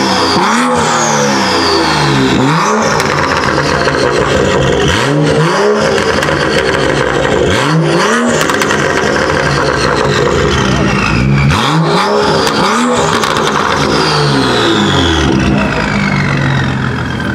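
Tuned BMW M235i-based 'M2' convertible with an Akrapovic exhaust, revved hard while standing still: repeated sharp blips, often two or three in quick succession, each rising and falling back. Short cracks come between the revs, and a high whistle falls away after several of them.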